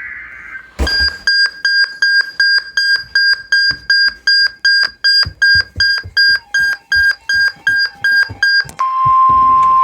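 Emergency Alert System tones. A brief data-burst screech opens it, then a rapid even train of electronic beeps, about three or four a second, for roughly eight seconds. Near the end the beeps give way to a single steady attention tone, which leads into the voice of a new severe thunderstorm warning.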